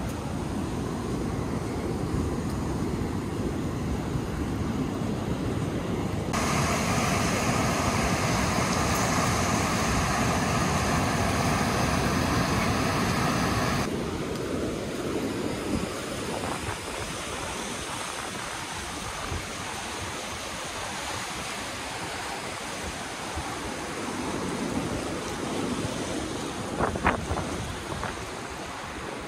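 Steady rushing of whitewater rapids in a man-made rafting channel, with some wind on the microphone; louder for several seconds in the middle. A few sharp clicks near the end.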